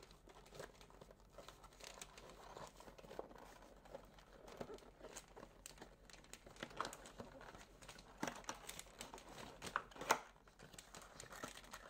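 Cardboard retail box of a wireless game controller being opened by hand: faint scraping and crinkling of card and paper as the end flap is pulled open and the contents slid out, with sharper snaps of the card about 8 and 10 seconds in.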